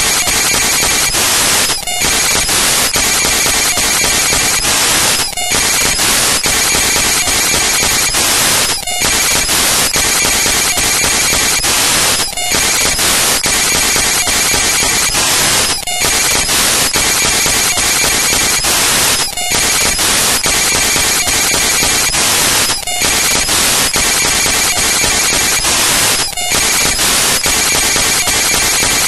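Loud, steady hiss like static, dropping out for a split second about every three and a half seconds, as if a short stretch of noise is looping.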